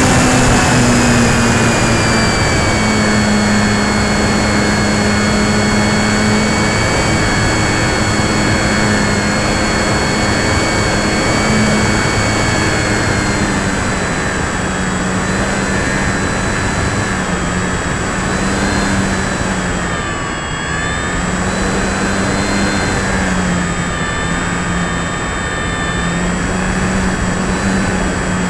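Electric motor and propeller of a Durafly Tundra RC plane, heard from a camera on the plane: a steady hum with a high whine over loud wind rush on the microphone. The pitch holds mostly level, then dips and wavers about two-thirds through as the throttle eases.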